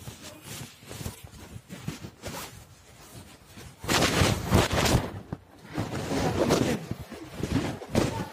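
Handling noise from a phone being held and covered: rustling and rubbing against the microphone, with louder scraping bursts about four seconds in and again around six seconds.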